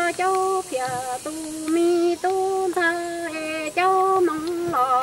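A woman singing Hmong kwv txhiaj (sung poetry) solo, in held notes that step up and down between a few pitches, with a slight wavering at each change of note.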